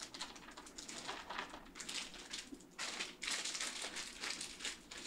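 Irregular scraping and rustling handling noises, a run of short gritty strokes with no steady tone.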